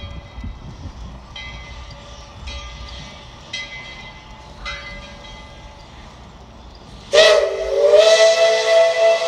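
Steam whistle of Tweetsie Railroad No. 12, a Baldwin 4-6-0 narrow-gauge steam locomotive, sounding one long blast about seven seconds in: a chord of several tones held steady. Before it, a low rumble and faint ringing strokes about once a second.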